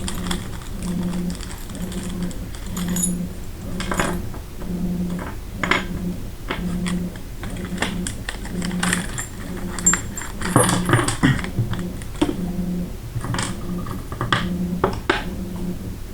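Small metal gun parts from an AR lower parts kit clinking and clicking as they are handled, in scattered light taps with a busier cluster about ten seconds in. Underneath, a low hum pulses on and off about once a second.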